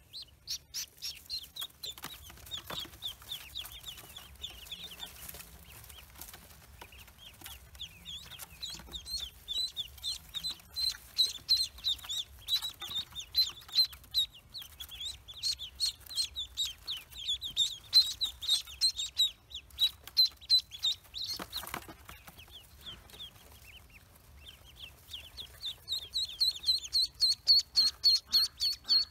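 Pekin ducklings peeping: a steady stream of short, high-pitched peeps, several a second, louder near the end.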